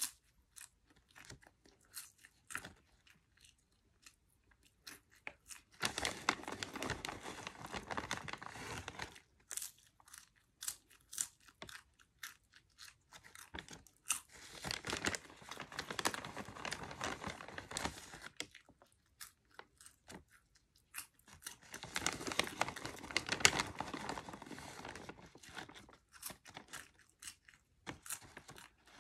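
Cheddar cheese popcorn being chewed close to the microphone: crunching in three spells of a few seconds each, with scattered small crackles and clicks between them.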